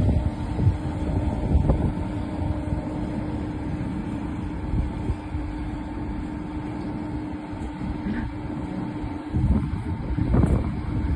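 A heavy engine running steadily with a constant hum, over a fluctuating low rumble of wind on the microphone.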